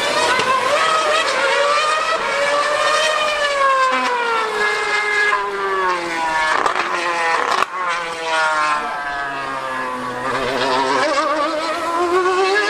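High-revving racing engine running hard, its note falling over several seconds, dipping briefly, then rising again near the end.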